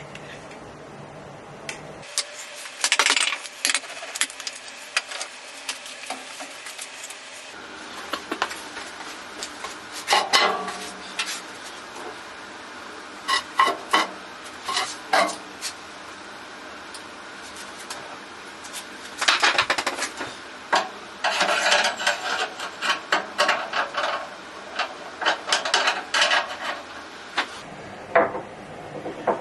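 Metal clinks, taps and rattles of hand tools and fittings against a bandsaw's steel base while a wheel kit is fitted, coming in irregular clusters of quick clicks with pauses between.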